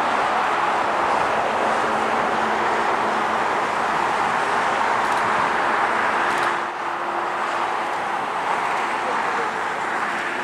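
Jet engines of a Boeing 737-9 MAX taxiing, a steady rushing whine with a faint low hum underneath. The level dips slightly about six and a half seconds in.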